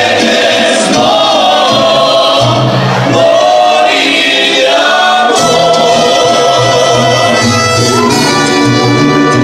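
Mariachi band performing live: several voices sing together over the band, giving way about halfway through to long held notes from the instruments.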